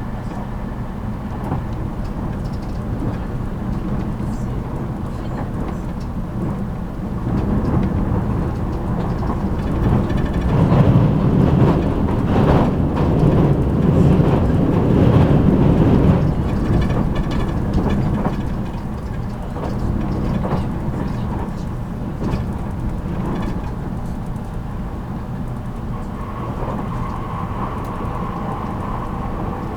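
JR Kyushu 783 series train running at speed, heard inside motor car MoHa 783-13: a steady rumble of wheels and running gear that swells louder for several seconds in the middle and then settles back.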